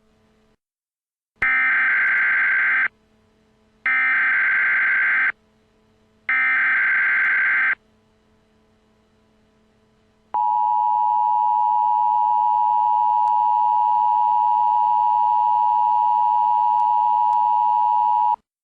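Emergency Alert System alert opening: three short bursts of screeching digital SAME header code about a second apart, then the two-tone attention signal, a steady tone of two pitches sounded together for about eight seconds that stops sharply. It marks the start of a new emergency broadcast.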